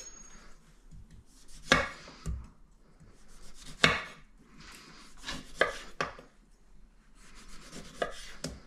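Chef's knife slicing a lime into rounds, each cut ending in a knock on the wooden cutting board: about seven separate knocks at uneven intervals.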